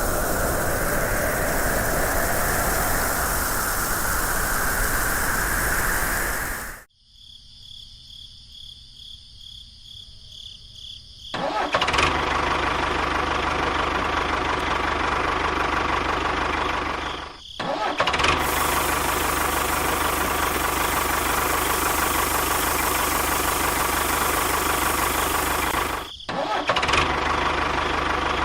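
Steady engine running noise, broken by abrupt cuts: it drops away for a few seconds to a quieter steady high whine, then comes back loud.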